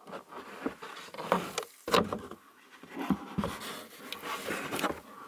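A cardboard box being opened and its packing handled: irregular rustling and scraping of cardboard, with scattered knocks, a louder one about two seconds in.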